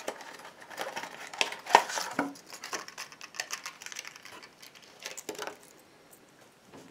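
A small crankbait's plastic retail packaging being handled and opened: crinkling and irregular clicks, the sharpest a bit under two seconds in, dying away after about five and a half seconds.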